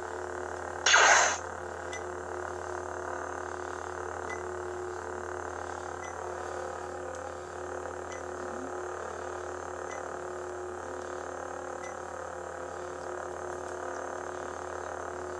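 Crimson Dawn Tsukenshido lightsaber's sound board playing the steady electric hum of its Darth Vader sound font, with one brief loud burst about a second in.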